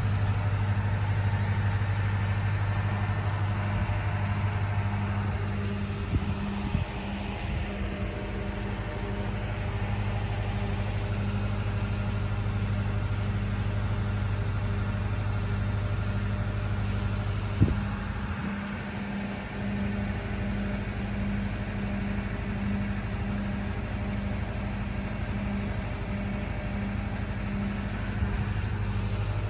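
Steady low hum of an engine running, with a slight regular pulse to it and a brief knock just past the middle.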